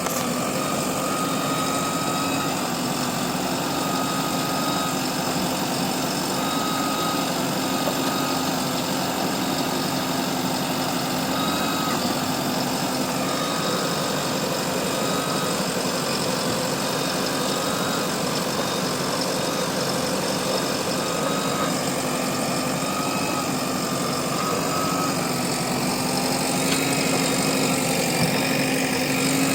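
Diesel engine of a JCB backhoe loader running steadily, growing a little louder and higher in pitch near the end.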